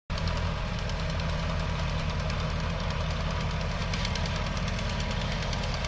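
Ford 500 tractor engine running steadily with an even, rapid firing beat as it pulls up a trailer's loading ramp.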